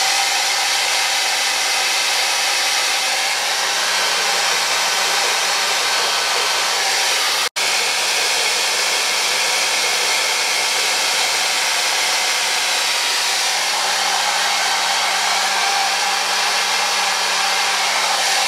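Handheld hair dryer blowing steadily, a loud even rush of air with a steady hum underneath, drying glue gel at a hairline until it turns tacky. The sound drops out for an instant about seven seconds in.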